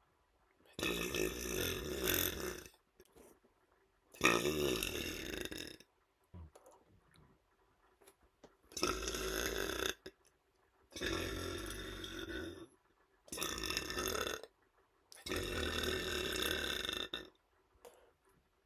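A man letting out six long burps one after another, each lasting one to two seconds, with pauses of about a second between them.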